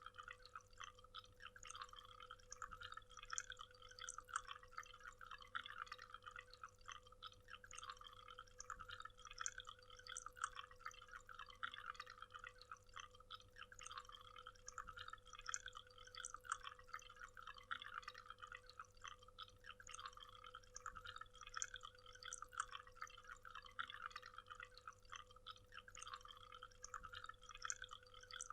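Waterfall water splashing and trickling in a faint, steady patter with no pauses.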